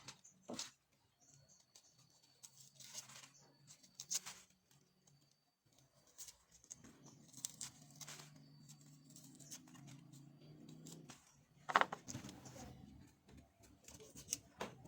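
Faint rustling and tearing with scattered light clicks, as ingredients are handled by hand in a kitchen. A low hum runs through the middle seconds, and a sharper knock comes about twelve seconds in.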